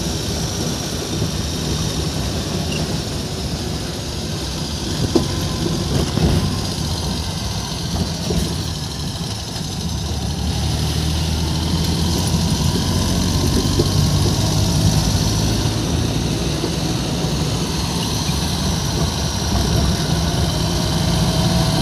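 Car engine running with road noise, heard from inside the moving car: a steady low hum that grows a little louder about halfway through.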